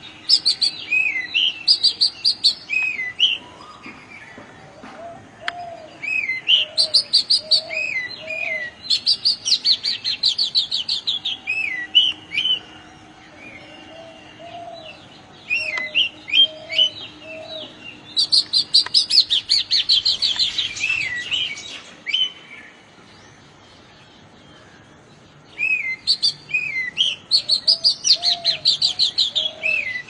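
Oriental magpie robin singing: phrases of clear downslurred whistles and fast runs of repeated high notes, about four song bouts separated by pauses of a few seconds. Softer, lower-pitched notes repeat beneath the song.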